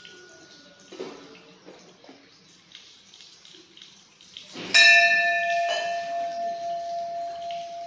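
A metal temple bell is struck once about two-thirds of the way in and rings on with several clear tones, fading slowly with a slight waver. Before the strike there are only faint small clinks and rustling.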